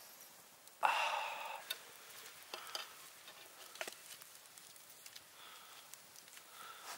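A sharp, audible breath in over the grilled food about a second in, then a few light clicks of a metal utensil against a small metal pan.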